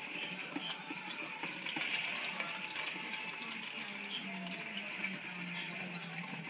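Water swirling and sloshing in a plastic gold pan as sluice concentrates are panned down toward the black sand, with small gritty ticks of sand and gravel. A steady low hum runs underneath.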